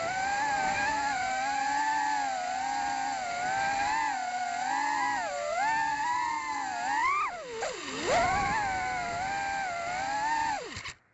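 BabyApe Pro FPV quadcopter's motors whining, the pitch rising and falling with the throttle, with a sharp dip and climb back about two-thirds of the way in. Near the end the whine glides down and cuts off as the motors spin down on landing.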